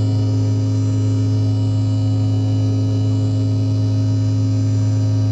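Jet airliner cabin noise at a window seat: a steady, loud engine drone with a strong deep hum and several fainter steady tones above it.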